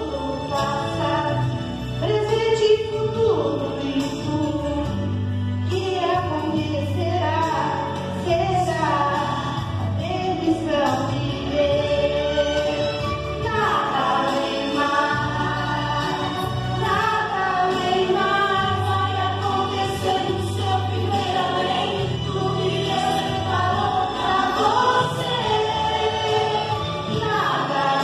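Two women singing a gospel praise song into microphones, over an instrumental accompaniment with sustained bass notes.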